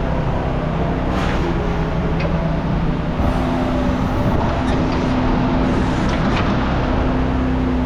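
A motor vehicle's engine idling steadily, with a few faint clicks over it.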